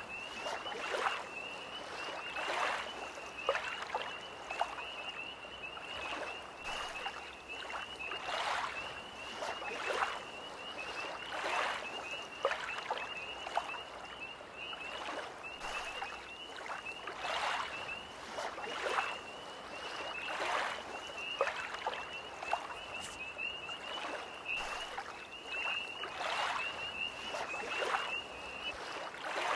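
Small lake waves lapping at the shore every second or so, over a continuous high, rapidly pulsing trill of tree frogs.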